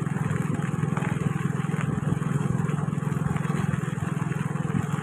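A vehicle's engine running steadily at an even pace, a constant low hum with a fast fine pulse, over a light rushing hiss of wind and road noise.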